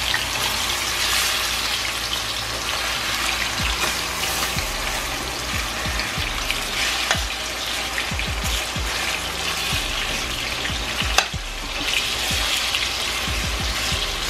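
Chicken thighs sizzling steadily as they brown in hot oil in a stainless steel skillet, with a metal spoon scraping and clicking against the pan as the pieces are pushed and turned; one sharp clink about eleven seconds in.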